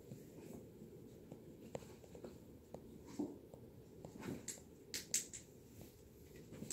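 Faint scratchy rustling of a hand rubbing a kitten's fur while the kitten's paws scrabble on carpet. A few louder brief scratches come past the middle.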